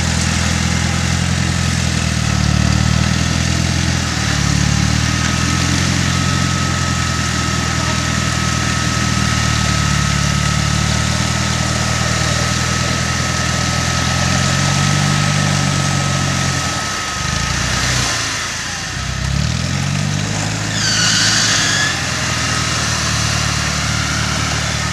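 Land Rover engines running at a low, uneven idle, their note rising and falling a little as the stuck vehicle is recovered on a line. There is a steady thin whine through the middle and a brief run of high squeaks near the end.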